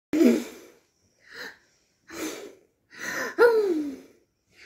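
A little girl blowing at a birthday candle in four breathy puffs, her voice sounding through the first and the last. The last puff is the longest.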